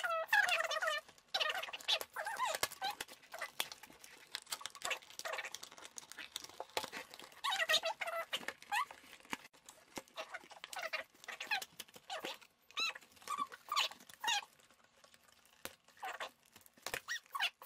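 A pet whining in short, high, wavering calls that come in clusters with gaps. Scattered clicks and rustles come from a cardboard doll box being handled.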